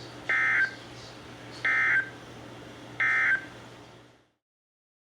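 Emergency Alert System end-of-message signal: three short bursts of warbling SAME data tones, each about a third of a second long and spaced about 1.4 seconds apart. They mark the end of the alert broadcast. A faint steady hum runs underneath, and everything cuts off suddenly about four seconds in.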